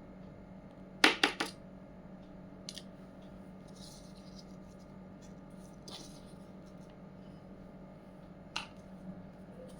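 Small hard miniature toy kitchen pieces being handled and set down: a quick cluster of three sharp clicks about a second in, then a few fainter single taps, over a steady low hum.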